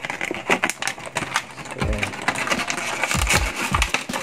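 Clear plastic blister packaging crackling and crinkling as it is flexed and pulled apart by hand, with a few dull knocks in the second half.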